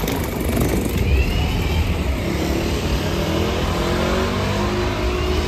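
Double-decker tour bus pulling away and driving off, its engine rumbling under load with a whine that climbs in pitch as it gathers speed.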